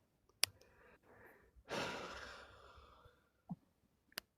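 A person breathing out in a long sigh about a second and a half in, fading away, with a sharp click before it and a couple of short clicks near the end.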